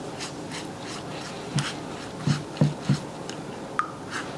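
Silicone pastry brush stroking egg wash over puff pastry: soft swishes about three times a second. A few short, low, voice-like hums in the middle are the loudest sounds, and a brief squeak comes near the end.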